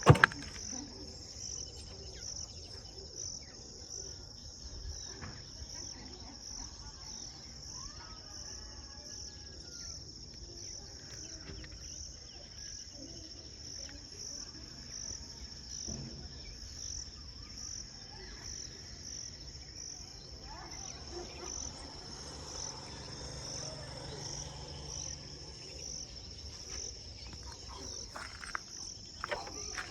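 Insects trilling in one steady high-pitched drone with an even pulse throughout. A sharp knock comes at the very start.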